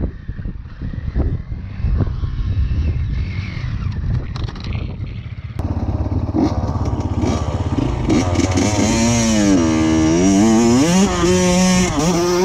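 A Honda CR85's two-stroke engine revving up and down, its pitch rising and falling in several sweeps, heard from on the bike. For the first half, before a sudden change, there is only a rougher low rumble with some clatter.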